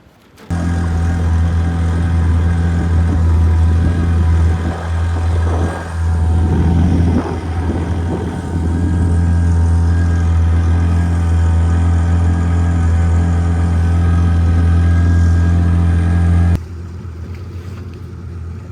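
Motorboat engine running steadily at a constant pitch, with a brief surge in the middle. It starts suddenly and cuts off suddenly near the end.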